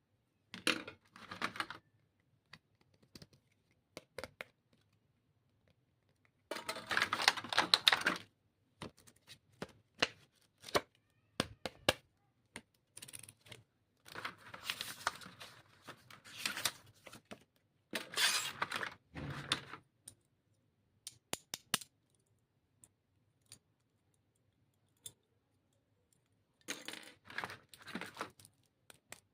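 Stationery being unpacked by hand: packaging rustles and tears in several bursts, the loudest about seven seconds in, between scattered small clicks and taps of items being handled.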